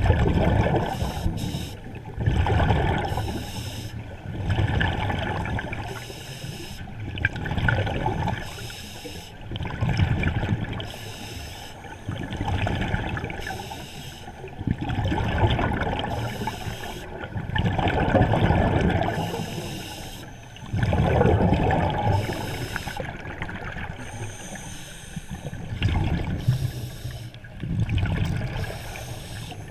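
Scuba breathing heard underwater: a diver's regulator exhausting bubbles in regular noisy surges, about one breath every two to three seconds, muffled through water.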